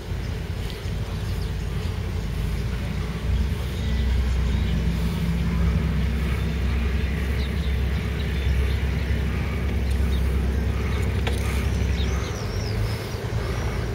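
Steady low rumble of outdoor noise, wind and road traffic, picked up while moving along a seafront path, with a few faint high chirps near the end.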